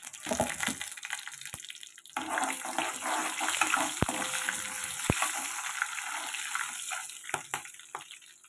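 Whole spices (bay leaves, cloves and shahi jeera) sizzling in hot oil in a kadai as they are stirred. The sizzle swells about two seconds in and dies down near the end, with two sharp knocks of the spatula against the pan about four and five seconds in.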